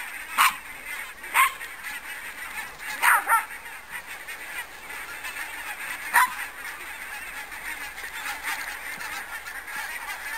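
A flock of wild geese honking as they fly overhead in long skeins. A handful of loud single calls stand out in the first six seconds over a continuous background of fainter calling from the rest of the flock.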